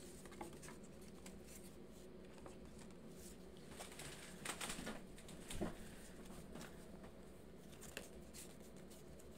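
Faint handling of a deck of tarot cards, with a few soft clicks of cards and a short flurry of light card rustling about halfway through, over quiet room tone.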